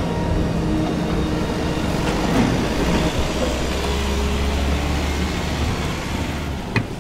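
Vehicle driving, with steady engine and road rumble heard from inside the cabin. A single short click near the end.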